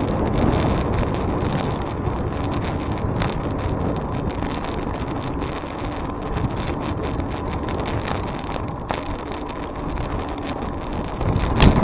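Steady rush of wind over the microphone while cycling, with road noise underneath. A single sharp knock near the end.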